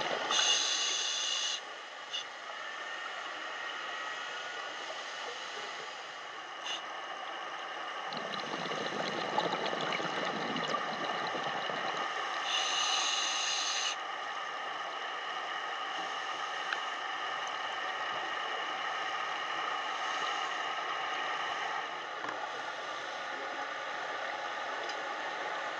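Steady hiss of water and the camera's own noise as heard by a submerged camera, with a faint constant whine. Two short, bright hissing bursts stand out, about a second in and again about 13 seconds in.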